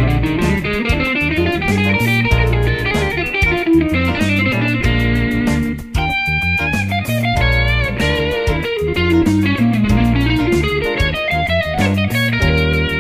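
Electric Stratocaster guitar playing fast single-note jazz-funk lines over a Bb7 groove, with runs that climb and fall, over a backing of bass and drums. About six seconds in, the backing briefly drops out under one held, ringing note.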